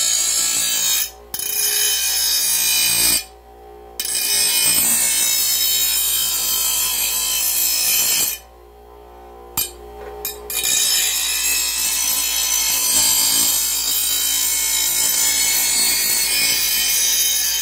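Porter-Cable bench grinder's wheel grinding the edge of a steel lawn mower blade, a loud harsh grind. It breaks off three times, the longest pause about two seconds, as the blade is lifted from the wheel and only the grinder's motor is heard running.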